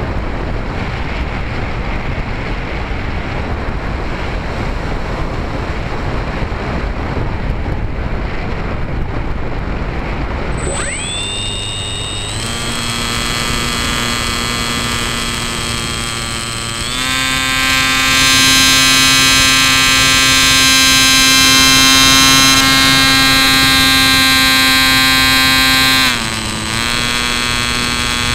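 Wind rushing over the onboard camera's microphone on a Bixler 2 RC plane in flight. About ten seconds in, its electric motor and propeller spin up to a steady whine. The whine steps up in pitch twice as the throttle opens, is loudest in the middle stretch, and drops back a little near the end.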